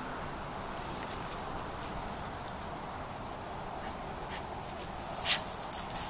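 Footsteps and paws rustling and crunching in dry leaf litter and twigs on the woodland floor: a few light crackles, then a louder crunch about five seconds in.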